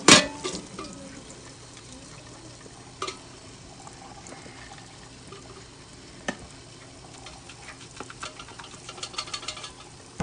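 A fire-blackened stainless steel pot being scrubbed with Bar Keepers Friend cleanser and water: a low gritty rubbing with scattered clicks, busier near the end. A sharp knock right at the start is the loudest sound.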